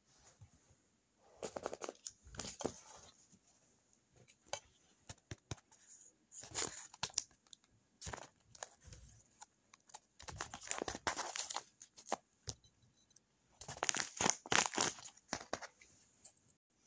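Homemade paper blind bag with a taped, plastic-like covering being handled and squeezed, crinkling and rustling in irregular bursts, loudest in the second half.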